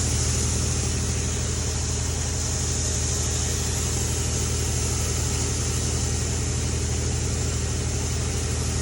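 Engine idling steadily: a deep, even hum with a constant hiss over it.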